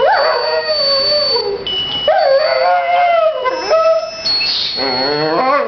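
A Dalmatian howling in long, wavering notes that slide up and down. There are three drawn-out howls with short breaks between them.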